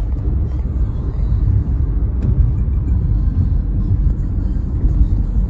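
Steady low rumble of a car driving along a road: engine and tyre noise heard from inside the moving car.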